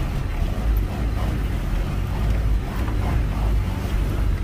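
Off-road 4x4's engine running steadily at low revs on a steep muddy trail, a low rumble heard from inside the cab.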